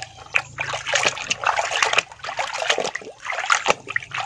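Water splashing and sloshing in irregular surges as muddy toy vehicles are rinsed by hand.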